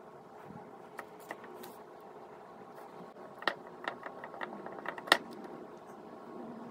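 Light clicks and taps of a wooden popsicle-stick frame and a paintbrush being handled on a newspaper-covered table, a cluster of them from about three and a half seconds in, the sharpest about five seconds in, over a steady faint hum.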